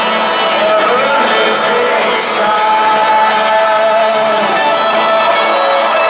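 Loud live rock music: a male lead singer over the full band, heard from among the audience in a stadium.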